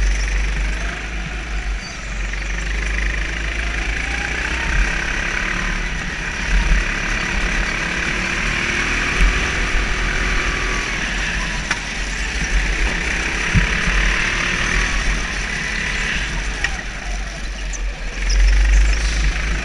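Go-kart engine running at speed heard from on board, its note rising and falling with faint revving sweeps over a heavy low rumble, getting louder near the end.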